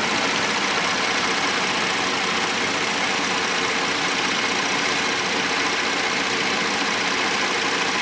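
2016 Cadillac SRX's V6 idling with the hood up and the air conditioning on max, a steady, even running noise with no change.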